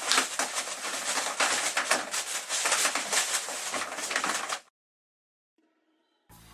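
Rain falling, a dense crackling hiss that cuts off suddenly after about four and a half seconds.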